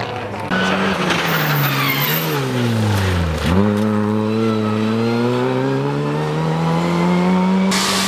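Opel Adam Cup rally car engine coming off the throttle into a bend, its note falling for about three seconds. Then it picks up sharply and climbs steadily higher as the car accelerates out in one long pull, cut off abruptly near the end.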